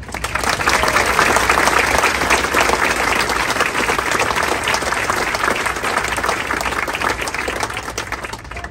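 Audience applauding, a dense crowd of claps that fades away near the end.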